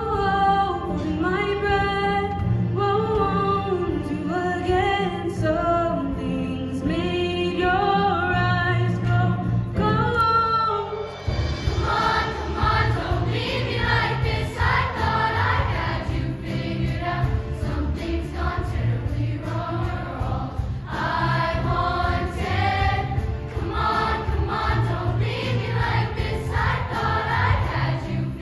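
Middle school choir singing with instrumental accompaniment. A single melody line carries the first ten seconds or so, then the full choir comes in and the sound grows fuller.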